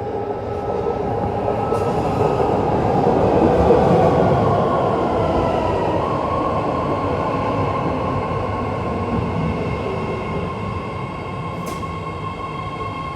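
BART Fleet of the Future train pulling into the platform: rumbling running noise that builds to its loudest about 4 s in, then eases as the train slows, with a high electric whine that drops in pitch and then holds steady.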